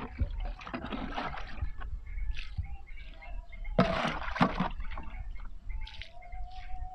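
Dissolved fertilizer solution sloshing in a plastic bucket and splashing onto the dry soil as it is scooped out and poured at the base of each eggplant plant, in several separate splashes, the loudest about four seconds in.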